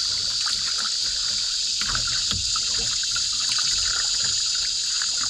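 Water trickling and splashing off a double-bladed paddle as a cedar-strip canoe is paddled, with irregular low swishes of the strokes. A steady high-pitched insect drone from the riverbank runs underneath.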